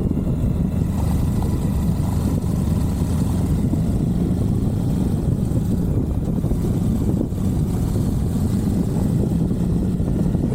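Suzuki V-Strom 1050XT's 90-degree V-twin engine running steadily under way, heard from onboard.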